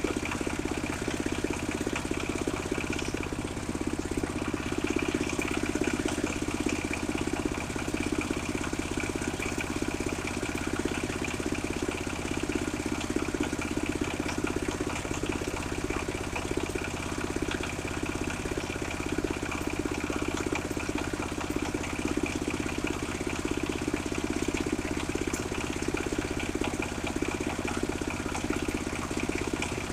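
Engine-driven portable circular sawmill running steadily and evenly.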